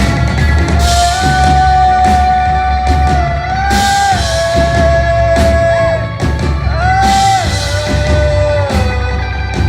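Live rock band playing loud, a singer holding long notes that step between pitches over guitars, drums and heavy bass.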